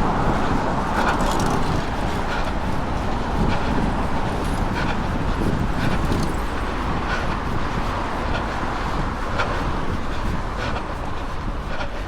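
Passing road traffic over a steady rush of wind on the microphone, with light taps about once a second.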